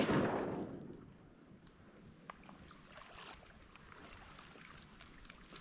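The echo of a shotgun shot rolling away across open marsh water, fading out over about a second. After it come faint water lapping and scattered small ticks.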